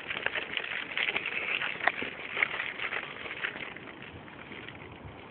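Footsteps crunching through dry leaves and brush on a woodland trail: irregular crackles that thin out about four seconds in.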